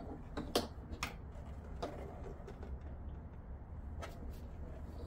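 A handful of light knocks and clicks as a flat screen panel is handled and lifted out of an arcade cabinet, over a steady low hum.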